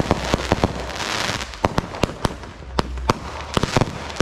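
Consumer fireworks going off overhead: a fast, irregular string of sharp bangs and crackling pops, with a spell of hissing about a second in.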